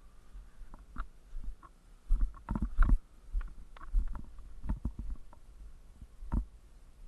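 Irregular footsteps, rustling and knocks of someone walking through long roadside grass onto gravel, with a low rumble of the body-worn camera being jostled. The loudest cluster of knocks comes a little over two seconds in.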